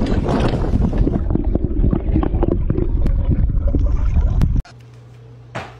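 Water sloshing and splashing with a heavy low rumble and many small clicks. It cuts off abruptly about four and a half seconds in, leaving only a faint steady hum.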